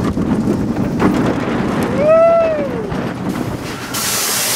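Cheetah Hunt roller coaster train running along the track with wind on the microphone, a steady rumble. A rider gives one short call that rises and falls about two seconds in, and a steady hiss starts near the end.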